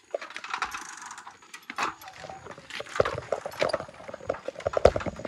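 Bicycle rattling as it rolls over a bumpy dirt path, with irregular metallic clicks and clinks.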